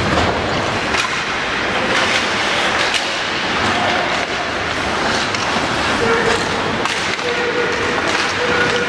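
Ice hockey play echoing in an arena: skates scraping the ice under sharp, irregular clacks and knocks of sticks, puck and boards.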